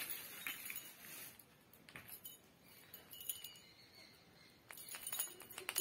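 Small bells on a colourful hanging bell ornament tinkling and clinking faintly as it is held up and swung, with a quick cluster of clinks near the end.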